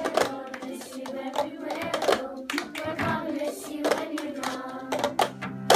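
Group of children singing a song together, with hand claps dotted through it and a loud clap at the very end.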